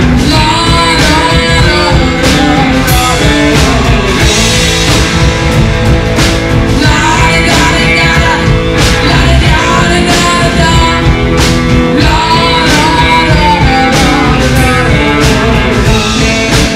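Live rock and roll band playing loudly: electric guitars, upright double bass and a drum kit, with a woman singing over them.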